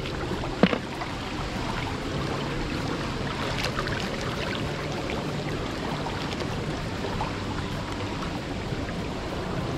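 Shallow water running steadily along a concrete irrigation canal as people wade through it. A single sharp knock sounds less than a second in.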